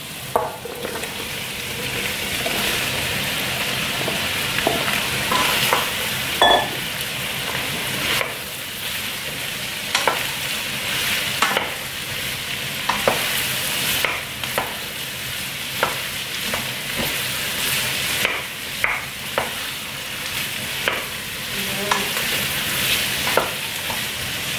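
Pumpkin cubes sizzling and frying in butter with onion and garlic in a stainless steel pot while a wooden spoon stirs them. A steady frying hiss runs under irregular sharp knocks of the spoon and food against the pot.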